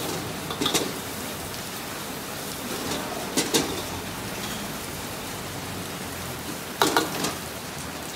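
Metal ladle and spatula clanking against a wok while stir-frying noodles: three short clusters of sharp clanks, about a second in, midway and near the end, the last the loudest. Under them a steady hiss of rain.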